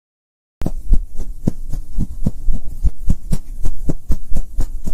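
Logo intro sound effect: a quick, even run of soft thumps, about four a second, over a low hum. It starts abruptly about half a second in.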